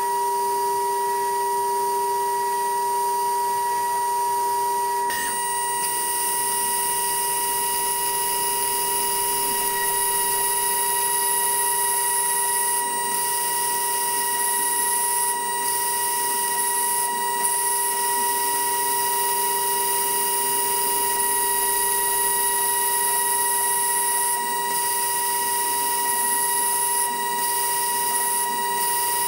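DATRON M8Cube CNC milling machine's 2.0 kW high-frequency spindle running as a fine engraving cutter mills into an aluminium panel: a steady high whine made of several fixed tones over a strong hiss. The high hiss drops out briefly a few times in the second half.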